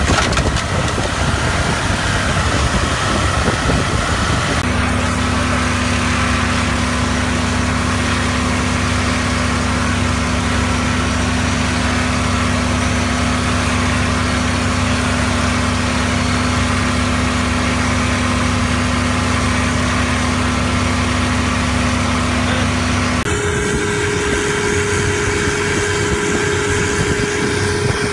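A fishing boat's engine running steadily under way, with a hiss of wind and water over it. The engine note jumps to a different pitch abruptly about five seconds in and again near the end.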